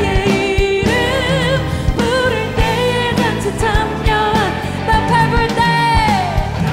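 Live worship band playing a Korean hymn: a female lead singer sings the melody with vibrato over keyboard, bass and drums. Near the end a held sung note slides down in pitch.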